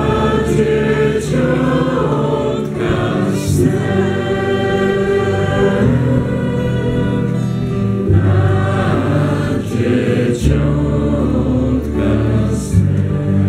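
A small vocal group singing a Polish Christmas carol (kolęda) together, with acoustic guitar accompaniment. The singing runs on without a break.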